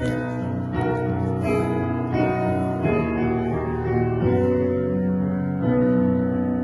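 Piano playing the introduction to a hymn: held chords that change about once a second, before the choir comes in.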